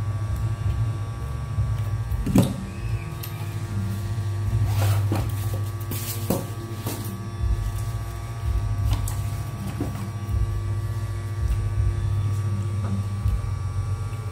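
Clicks and light knocks of a small plastic wire spool being handled and set down on a wooden table, over a steady electrical hum.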